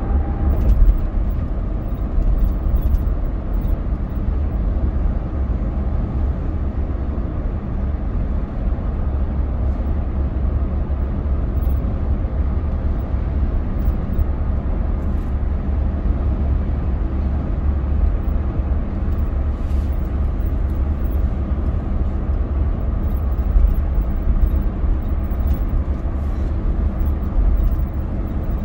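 Wind buffeting the microphone: a steady, flickering low rumble with a faint hiss above it.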